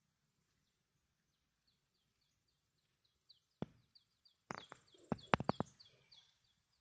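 A small bird chirping in a quick, steady series of short, high, falling notes. A few sharp clicks and knocks come about three and a half to six seconds in.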